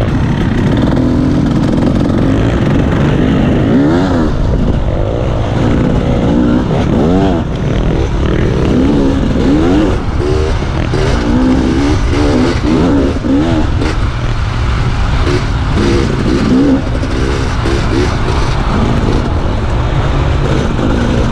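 Dirt bike engine under way, its pitch rising and dropping back again and again as the rider accelerates and eases off, over heavy wind rumble on the microphone.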